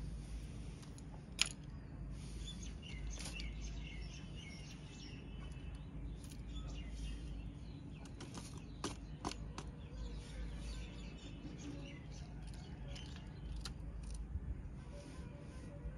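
Scattered light clicks and ticks of calcium nitrate granules being tipped into a small steel bowl on a pocket scale, with small birds chirping faintly over a low steady background rumble.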